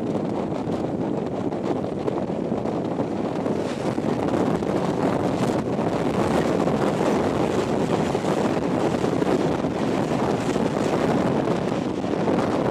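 Wind rush and wheel-on-rail running noise at the open door of a moving passenger train, with scattered knocks from the rails. About midway a passenger train on the next track passes close alongside and the rushing grows a little louder.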